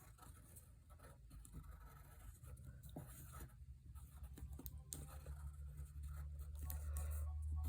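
Pencil sketching on a sheet of paper: faint, irregular scratching strokes. A low hum grows louder in the last couple of seconds.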